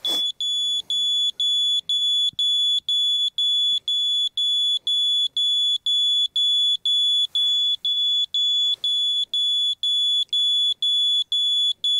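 Laser level receiver beeping rapidly, one high-pitched tone repeating about three times a second, as it picks up the laser beam while it is set to the reference line.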